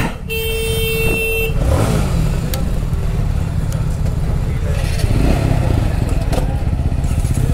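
A horn sounds one steady tone for about a second. Then the TVS Apache RTR 200's single-cylinder engine runs with a low, continuous rumble.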